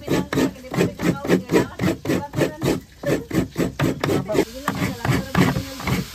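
Rapid, rhythmic scraping strokes, about four a second, kept up steadily.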